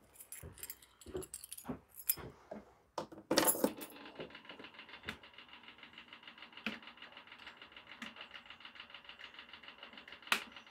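A key ring jingling as the ignition key of a Kubota BX1500 compact tractor is put in and turned, with a sharper clatter just before 4 s. Then a steady, fast electric ticking with a faint high tone sets in and keeps going with the key switched on, with a few louder clicks on top.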